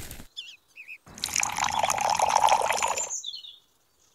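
Water poured into a small tin-can mixer drum onto cement powder, starting about a second in and lasting about two and a half seconds. A few short bird chirps come before it.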